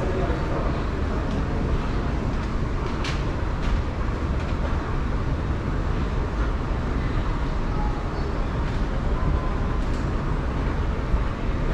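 Moving walkway running under the riders: a steady low rumble with hiss, and one sharp click about three seconds in.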